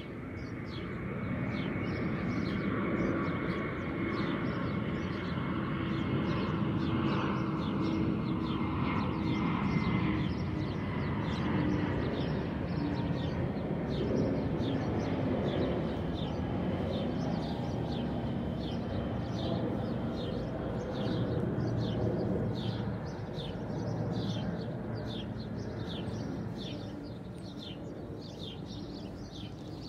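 Airplane passing overhead: a low rumble with a faint steady whine that swells over the first few seconds, then slowly fades. Small birds chirp over it in quick repeated notes, more busily toward the end.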